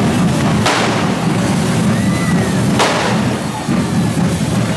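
Hand-held firework spark-throwers (carretilles) hissing, with two sharp bangs, one under a second in and one near three seconds, over steady drumming.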